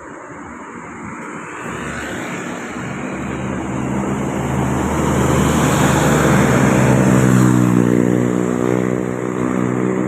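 A large bus passing close by on the road, its engine note growing steadily louder for about six seconds and then slowly easing off.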